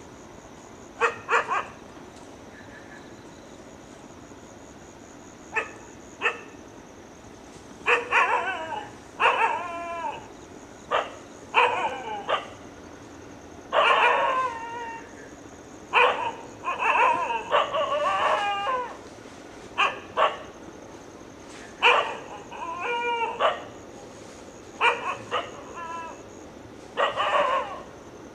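An animal calling over and over in short yelping calls, some single and some in quick runs of three or four, with a faint steady high-pitched tone behind them.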